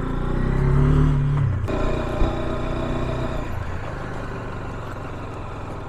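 Motorcycle engine pulling under throttle, its pitch rising, then easing off sharply about a second and a half in and running on more quietly, with a single click soon after.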